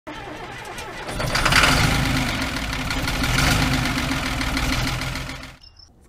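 An engine starting and running, swelling about a second in and dying away shortly before the end.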